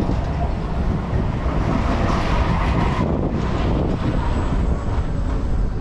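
Wind buffeting an on-ride camera's microphone as the gondola of a balloon tower ride swings through the air: a steady low rumble, with a higher hiss that cuts off about halfway through.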